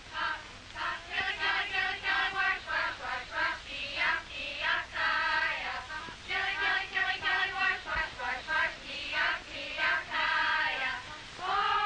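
A group of young voices singing a song together, syllable by syllable, with a long held note coming in near the end.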